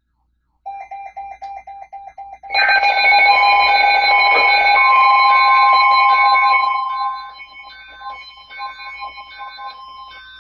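NOAA Weather Radio alert tones for a special marine warning. A fast electronic beeping starts about a second in. At about two and a half seconds several louder alarm tones join it, and a steady high tone comes in at about five seconds. The loudness drops after about seven seconds, while the steady tone and the pulsed beeping go on.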